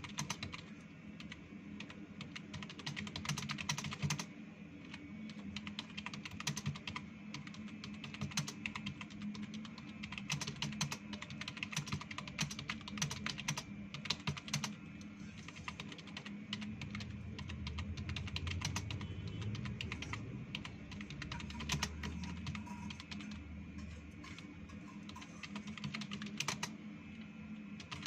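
Fast continuous typing on a computer keyboard: a dense, uneven stream of keystroke clicks during a typing speed test, over a steady low hum.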